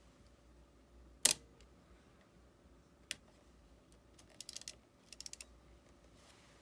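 Epson R-D1 rangefinder camera's shutter firing with one sharp click about a second in, followed by a smaller click and then two quick runs of light mechanical clicks.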